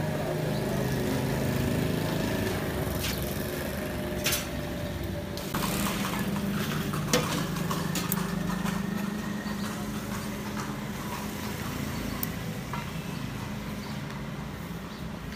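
A motor vehicle's engine running steadily in street traffic, with a few sharp metal clinks of a steel ladle against a large cooking pot.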